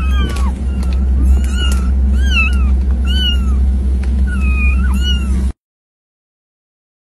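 A litter of kittens mewing over and over, short high calls overlapping one or two a second, over a steady low rumble. The sound cuts off suddenly about five and a half seconds in.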